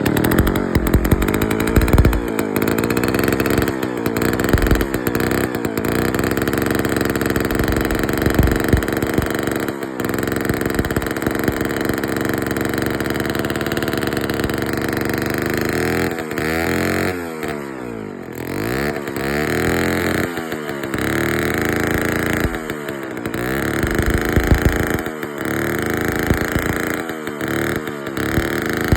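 McCulloch 549 two-man chainsaw's two-stroke engine running, its revs dropping and climbing back again several times in the second half.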